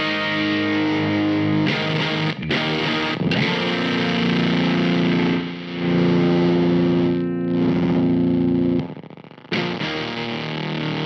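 Electric guitar played through a Weird Noise Effects drive pedal, set more toward overdrive than fuzz: distorted chords are strummed several times, then one is left ringing for about five seconds before it is cut off and a new chord is struck.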